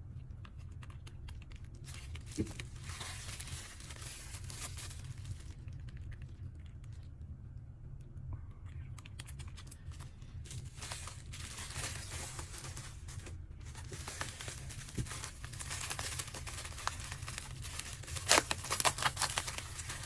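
Packaging being handled and torn open, with crinkling and tearing rustles that come and go and build to a run of sharp crackles near the end. A steady low hum runs underneath.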